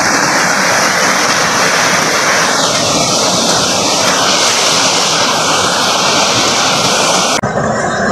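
Shallow rocky stream rushing and splashing over stones, a loud, steady water noise; about seven seconds in the hiss thins out suddenly.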